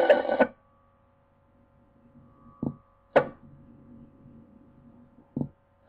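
Pause in taped fire-department scanner radio traffic. A radio voice cuts off about half a second in, then sharp clicks come over a faint steady hum: two about half a second apart near the middle, and one near the end.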